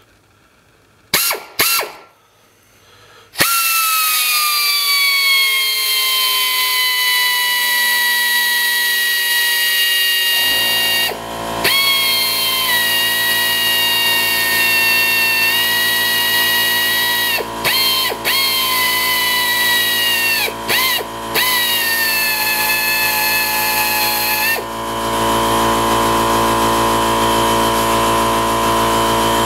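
Air drill with a small bit drilling out a cotter pin broken off inside a tie rod end's stud. A few short trigger blips come first, then a long whine from about three seconds in that slides down in pitch as the bit bites. The whine stops and restarts briefly several times.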